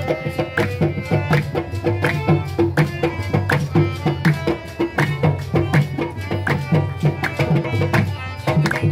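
Harmonium playing a melody over a steady drum beat with rhythmic hand clapping, the instrumental opening of a qawwali-style devotional song.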